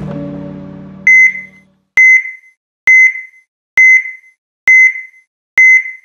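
Electronic heart-monitor-style beeps, a short high tone repeating evenly about once every 0.9 seconds, six in all, starting about a second in. Before them the last chord of a music sting fades out.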